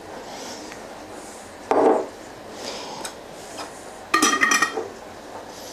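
Glass jars knocking and clinking against each other and on the sink: a short knock about two seconds in, then a longer ringing clatter of glass about four seconds in.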